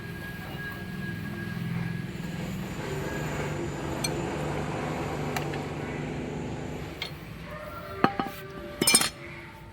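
Steady low mechanical running from the Suzuki 250 motorcycle, then near the end two sharp ringing metal clinks about a second apart, the second louder.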